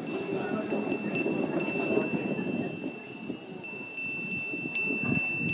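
A Japanese furin wind chime, a small black metal bell with a paper strip hung from its clapper, ringing as the clapper strikes it about two to three times a second, each strike renewing a clear steady ring. A low background murmur lies underneath.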